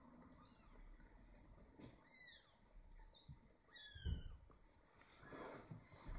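Eleven-day-old kittens mewing: short, high cries falling in pitch, a loud one about two seconds in and a louder one about four seconds in, with fainter mews around them.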